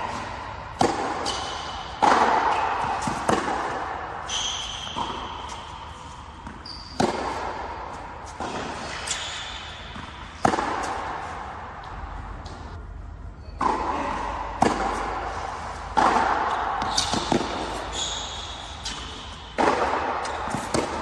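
Tennis rally on an indoor hard court: racket strikes and ball bounces about every second, each ringing out in the large hall, with short high squeaks between shots.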